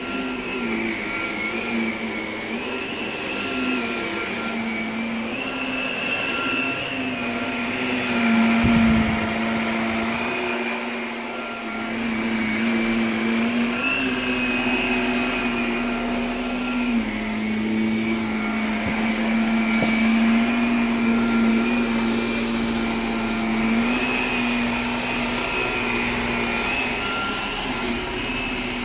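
Shark upright vacuum cleaner running on carpet, a steady motor hum with a high whine above it, the pitch dipping and rising slightly every few seconds as it is worked over the floor. A brief low bump about nine seconds in.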